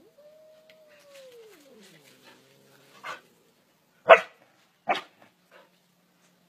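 A drawn-out cry that holds and then falls in pitch, followed about four and five seconds in by two loud barks from a Belgian Malinois.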